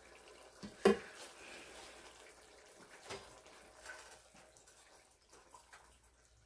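A silicone spatula stirring a thick, steaming keema and potato curry in a metal cooking pot: one sharp knock about a second in, then soft scraping and a few light taps against the pot over a faint hiss.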